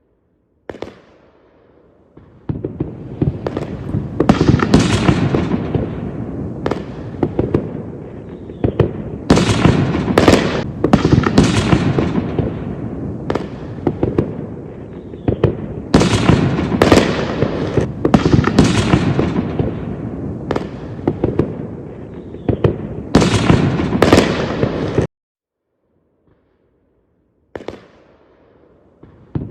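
Fireworks going off in quick succession: many sharp bangs and crackling bursts overlapping in a dense barrage, which cuts off suddenly near the end and starts up again just before it finishes.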